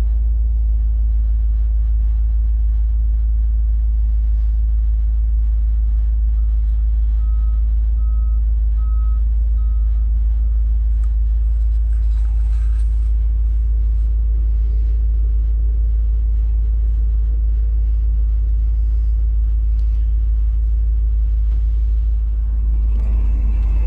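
Heavy vehicle engine running with a steady low rumble, while a reversing alarm beeps five times, about once a second, several seconds in.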